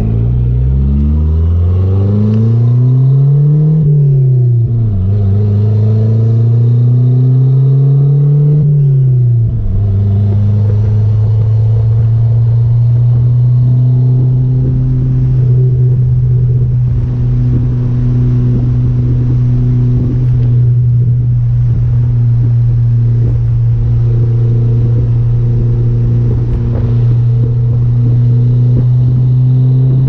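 Turbocharged 2.6-litre G54B four-cylinder engine of a Chrysler Conquest accelerating through the gears. Its pitch climbs and drops at a shift about four seconds in, climbs again and drops near ten seconds, then holds steady at cruise.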